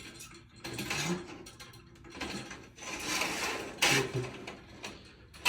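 Roller shutter mechanism rattling and clicking in uneven bursts while it is checked, with a sharp click near the end.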